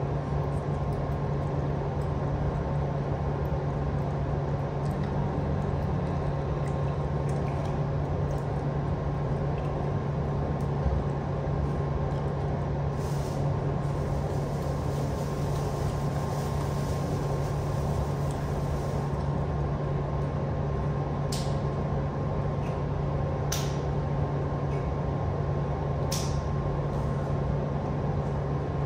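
Steady low mechanical hum filling the room, with a thin fixed tone above it, and a few short clicks in the second half.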